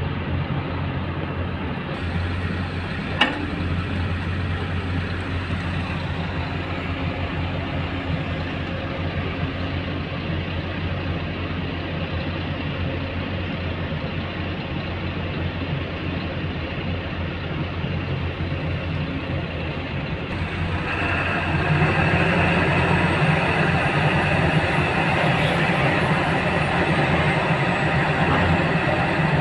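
Heavy diesel tipper truck engine idling steadily, heard from inside the cab, with a single sharp click a few seconds in. About two-thirds of the way through, the engine note gets louder and fuller as the truck is driven off.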